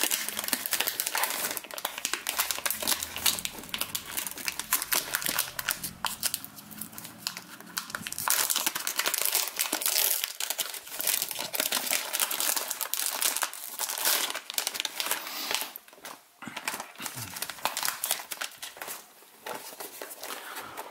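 Clear cellophane wrap being peeled and pulled off a cardboard perfume box, crinkling and crackling continuously, thinning out with short quiet gaps in the last few seconds.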